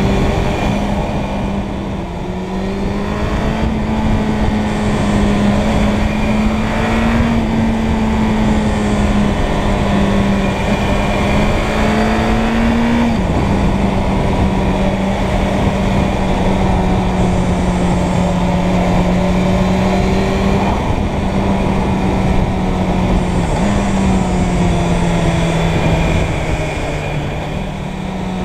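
Suzuki Bandit 600's inline-four engine running steadily at road speed under wind rush, its pitch creeping up and then dropping sharply about halfway through, and again a few seconds before the end, after which it sinks slowly.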